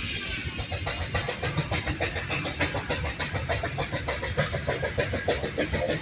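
Steam engine running, its exhaust chuffing in a fast, even rhythm of about six beats a second over a low rumble, with a hiss of steam.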